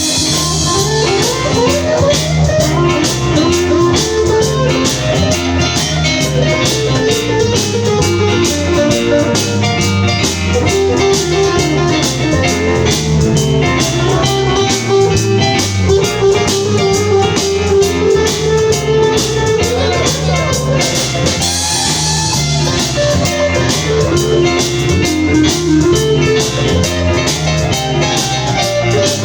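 Live blues band playing an instrumental break: an electric guitar solo with string bends over a steady drum kit and bass.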